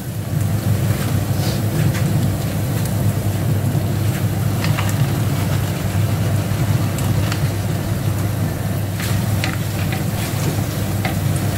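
Tofu cubes frying in a stainless steel skillet as they are tipped in and stirred with a wooden spatula, with scattered scrapes and taps, over a steady low rumble.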